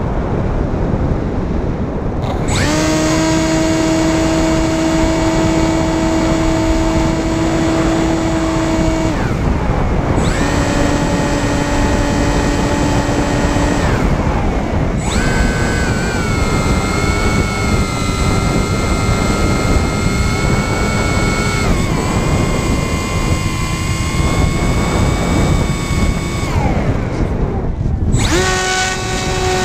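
Electric motor and propeller of a Sky Eye RC FPV plane whining under throttle, heard from the plane's onboard camera over rushing wind. After a couple of seconds of wind alone the motor comes in. It cuts out briefly three times and comes back at a different pitch each time as the throttle changes.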